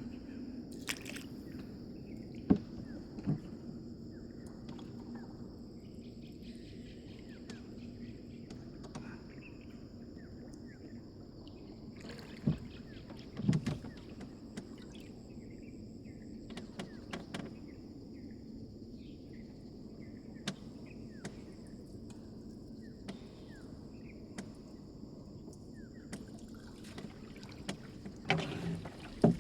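Insects buzzing in a steady high drone over a low, even outdoor rumble, with a few sharp knocks or splashes: two near the start, two around the middle and a cluster near the end.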